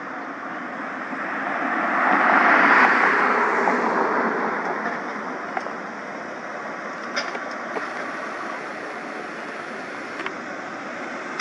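A road vehicle passing by: engine and tyre noise swells to a peak about three seconds in and fades away over steady background noise.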